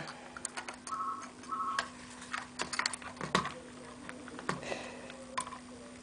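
Light, irregular clicks and taps of plastic and metal as a laptop's IDE hard drive is handled and fitted back into its drive bay, over a faint steady hum.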